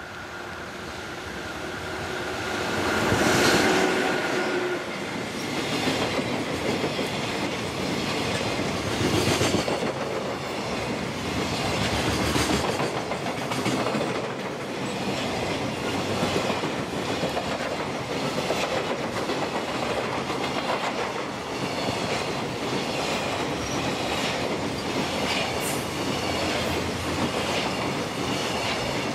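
JR Freight EF66 electric locomotive passing close by with a steady whine, loudest about three to four seconds in, followed by a long train of container wagons rolling past with a rhythmic clickety-clack of wheels over rail joints.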